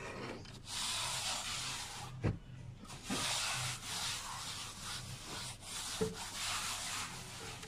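Plastering tool being worked across wet render on a block wall, rubbing and scraping in a few long strokes of a second or two each.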